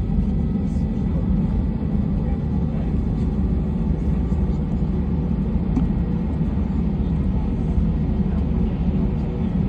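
Steady low rumble of an Airbus A320's engines and airflow heard from inside the passenger cabin, even throughout with a few faint steady tones over it.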